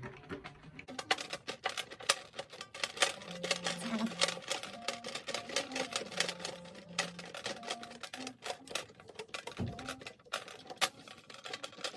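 Rapid, irregular clicking and tapping of metal hardware as snare drum tension rods are worked into the lugs, over background music with a simple stepping melody.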